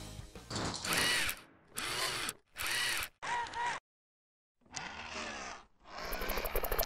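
Robotic-arm sound effects for an animated logo: a run of short mechanical whirs, each lasting under a second, with a one-second gap midway, then a fast, even ratcheting click from about six seconds in.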